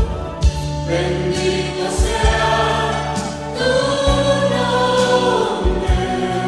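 Choir singing a Spanish-language Christian praise song with a backing band, over low, regular drum beats.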